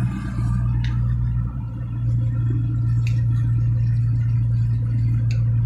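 Steady low drone of a vehicle driving, heard from inside the cab: engine and road noise, with three faint clicks spread through it.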